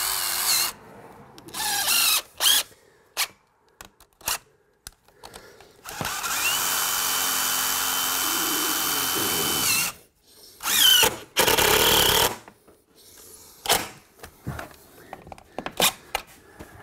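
DeWALT cordless drill driving screws through the bottom track of a vinyl double-hung window: a few short bursts, one long steady run of about four seconds in the middle whose whine rises as it starts and drops as it stops, then two more short bursts near the end.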